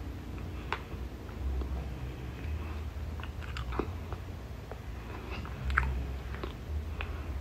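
A person chewing raw cornstarch chunks close to the microphone: a low mouth rumble with scattered sharp crackles, the strongest a little before six seconds in.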